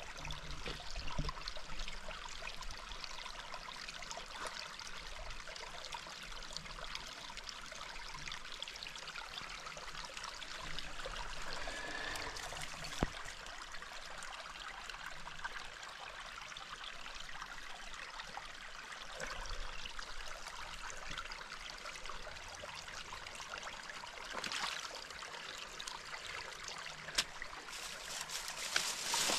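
River water running with a steady rush, with a couple of sharp clicks, one about halfway through and one near the end.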